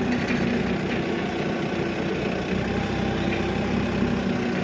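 Steady mechanical drone of machinery running, its deepest rumble dropping away near the end.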